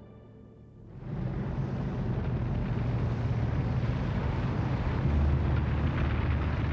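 Heavy military truck engines running: a low, steady rumble over a rushing noise. It comes in about a second in after a brief lull, and the deepest part of the rumble grows stronger about five seconds in.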